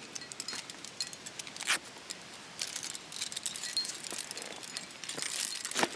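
Metal climbing hardware, carabiners and gear on a harness, clinking and jingling with many small clicks, and two louder knocks, one about two seconds in and one near the end.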